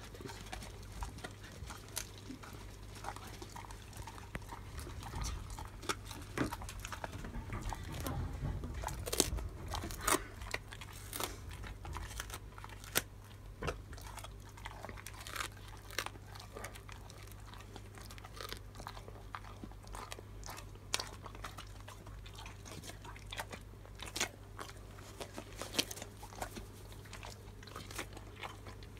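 Golden retriever crunching and chewing a dried, puffed pig-snout dog treat: irregular sharp cracks, coming thickest about a third of the way in.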